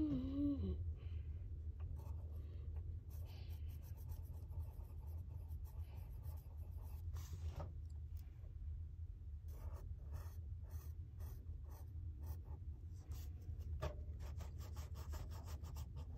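Pencil scratching on sketchbook paper in many short, uneven strokes as a drawing is sketched.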